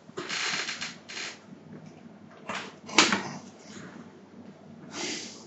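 Soft rustling and handling noises from a person shifting at a desk, in short bursts, with a single sharp click about three seconds in.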